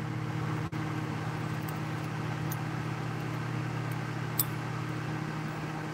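A steady low electrical-sounding hum, with a faint click about four and a half seconds in.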